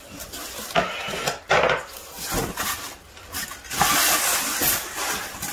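Packing being handled: a wood-effect shelf board lifted and slid out of its white foam packing, with scraping and rustling of the board against foam and plastic wrap. The noise comes in a few stretches, the longest around four seconds in.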